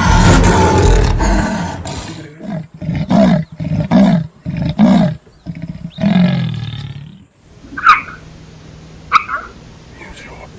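Tiger roaring: one long loud roar, then a run of five or six shorter roars, and a longer roar that falls in pitch. Three short, high calls follow near the end.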